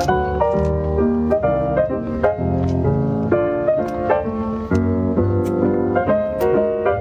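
Background piano music, a quick tune with notes changing several times a second.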